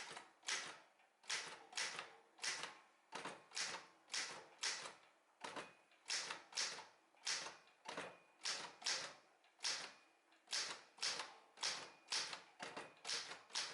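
Olympia SG-1 manual office typewriter being typed on: single sharp key strikes at an uneven pace of about two a second.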